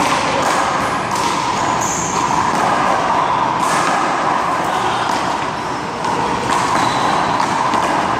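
Handball rally: a rubber handball smacking off hands, wall and ground, several sharp irregular slaps over a steady background noise.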